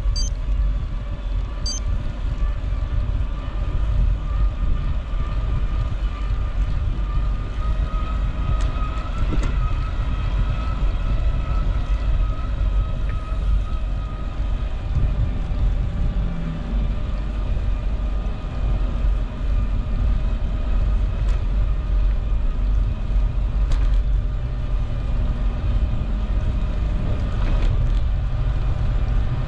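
Road and wind noise from a moving vehicle: a heavy, fluctuating low rumble of wind on the camera microphone, with a steady whine that drifts slightly in pitch.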